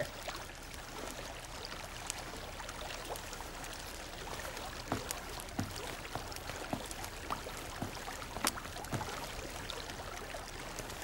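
Water running and trickling steadily, with scattered sharp drips and plinks. It is water flowing through bamboo pipes buried under the ground.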